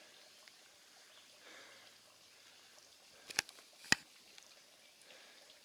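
Faint outdoor background with two sharp clicks about half a second apart, a little past halfway.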